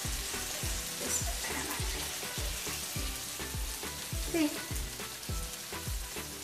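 Chicken breasts sizzling in hot oil in a nonstick frying pan, with a fine, even crackle. Soft background music with a steady beat runs underneath.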